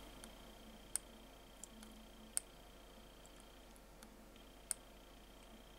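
Three faint, sharp clicks spread irregularly over several seconds, with a few fainter ticks between them: the fire button of a Sigelei 20 W box mod being pressed to pulse a newly wrapped coil on an RBA base, which glows red-hot.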